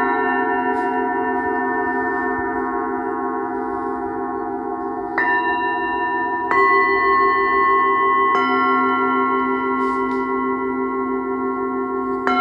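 Small hand-forged Nepalese singing bowls from a seven-note set, struck one after another with a mallet. The earlier notes keep ringing with a slow wavering beat, and three fresh strikes in the second half each add a new ringing note on top.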